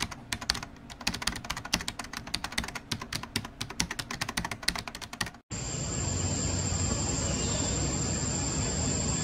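Rapid keyboard-typing clicks, a sound effect under animated on-screen text, stop abruptly about five and a half seconds in. Outdoor ambience follows: a steady high-pitched drone over a low rumble.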